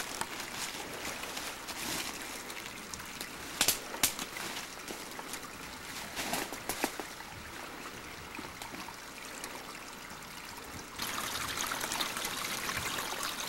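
Footsteps rustling and crunching through dry leaves, with a few sharp snaps, over a steady trickle of running water that grows louder near the end.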